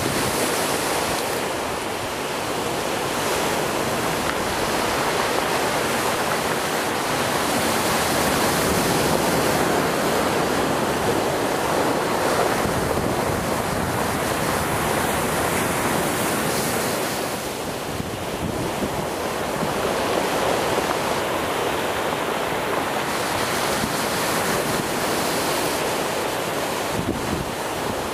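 Rough sea surf breaking and washing over a rocky shore, rising and falling in slow swells, with wind on the microphone.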